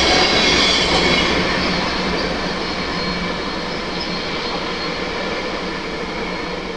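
Wheel-on-rail noise of a freight train of tank cars rolling away, fading slowly.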